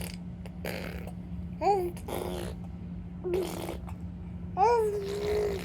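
A nine-month-old baby blowing raspberries with the lips, making fart-like buzzing noises, mixed with short babbling vocal sounds that rise and fall in pitch. The last vocal sound is held longest, over a steady low hum.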